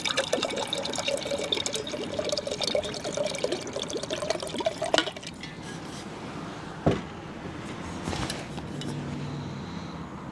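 Water poured from an insulated bottle into a steel camp cup, the filling sound rising slightly in pitch as the cup fills, then stopping about five seconds in. A single sharp knock follows a couple of seconds later.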